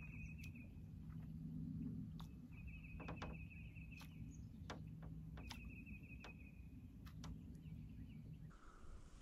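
A bird's trilled song, about a second long, repeated three times roughly every three seconds. Under it runs a steady low hum that stops near the end, with a few faint clicks.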